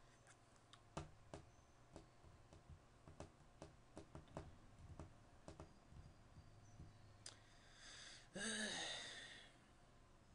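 Faint scattered clicks, then a person's short sigh about eight seconds in.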